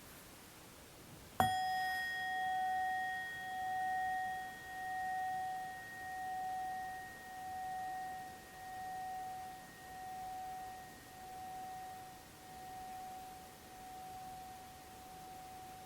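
Singing bowl struck once, about a second and a half in. A single ringing tone follows, wavering in loudness and slowly fading.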